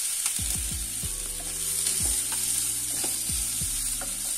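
Wooden spatula stirring diced boiled potatoes, onions and peas in a hot coated kadai, with a steady sizzle of frying and irregular dull knocks of the spatula against the pan.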